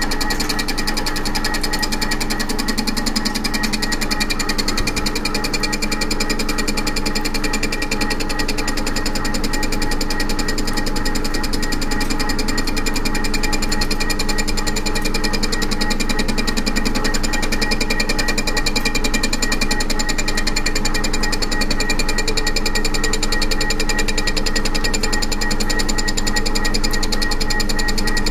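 TOS milling machine face-milling the deck of a Volvo six-cylinder aluminium cylinder head: the cutter's teeth give a fast, continuous chatter over the machine's steady running whine. It is a deeper pass of about 20 thou to clean up the warped, pitted head face.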